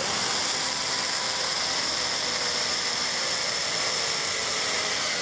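Black & Decker cordless drill running steadily at constant speed, boring an angled pilot hole for a deck screw into wood.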